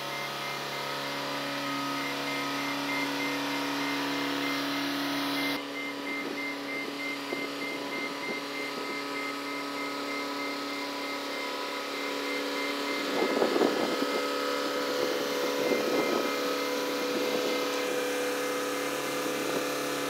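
Boatyard travel hoist's engine running steadily as it carries a yacht, getting louder and rougher for a few seconds about two-thirds of the way through.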